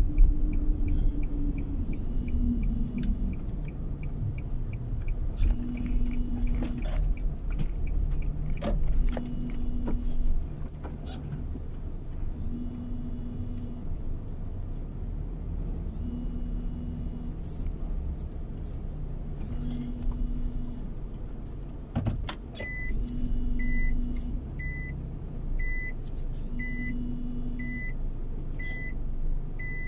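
Car heard from inside the cabin, rolling slowly with a steady low rumble and scattered knocks. Regular faint ticking, likely the indicator, runs in the first few seconds. From about 23 s in, the car's reverse warning beeps steadily, a little more than once a second, as it backs in a parking lot.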